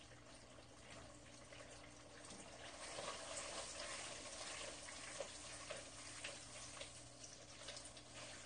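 Black bean (jjajang) sauce sizzling and bubbling in a frying pan as it is stirred with a spatula. Faint, getting a little louder about three seconds in, with a few light spatula taps.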